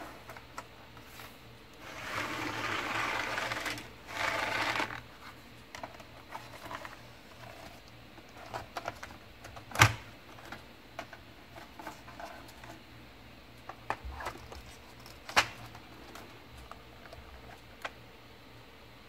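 Handling of a metal tin and trays of Faber-Castell Polychromos colour pencils: a noisy stretch of rustling handling about two to five seconds in, then scattered light clicks of pencils and tray against the tin, with two sharper knocks about ten and fifteen seconds in.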